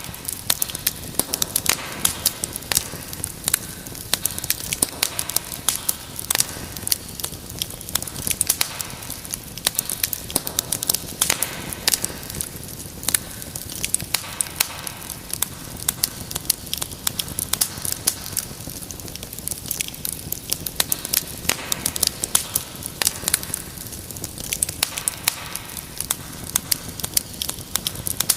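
Wood fire crackling steadily, with many sharp pops and snaps at irregular moments over a soft low rush of flame.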